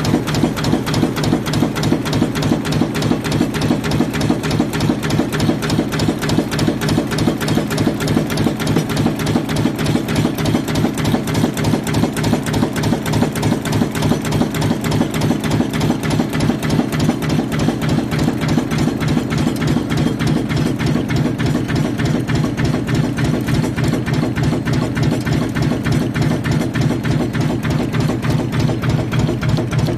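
TaiShin 11B6S multi-station hex nut former running, cold-forging M6 nuts in a fast, even rhythm of repeated strokes over a steady mechanical drone.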